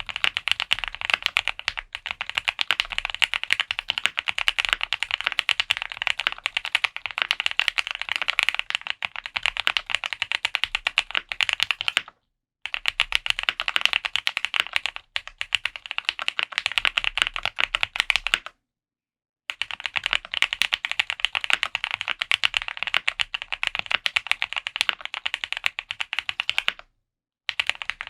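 Fast, continuous typing on a QK75 custom mechanical keyboard with Krytox-lubed Gateron Box Ink Black linear switches, a polycarbonate plate and GMK ABS keycaps: a dense stream of key clacks, broken by three short pauses.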